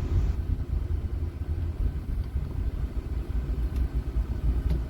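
Low rumble of a vehicle on the move, with a couple of faint clicks near the end.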